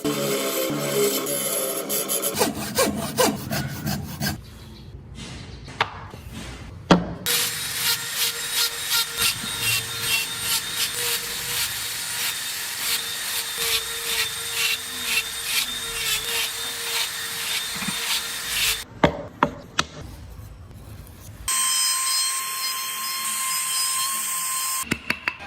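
Hand tools working wood, in several short clips. The longest is steady back-and-forth sawing at about two to three strokes a second, followed by a few sharp clicks and then a steadier rubbing sound.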